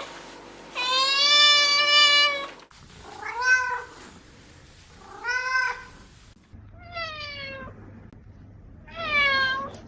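A cat meowing five times: one long, level meow about a second in, then four shorter meows, the fourth falling in pitch.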